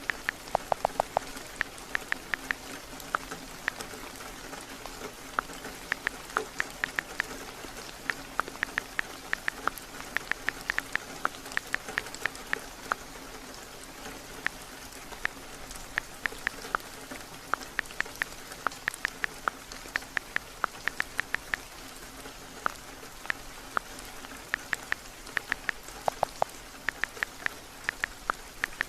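Steady rain, with runs of quick, sharp clicks from typing on a phone's keyboard.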